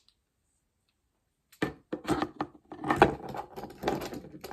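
Plastic parts of a Transformers action figure clicking and rattling in the hands as the toy is folded and manipulated. The clatter starts suddenly after more than a second of near silence and goes on as a dense run of small clicks.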